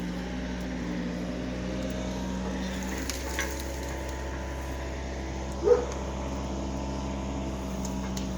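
An engine running steadily at an even speed. About two-thirds of the way in, a dog gives one short bark.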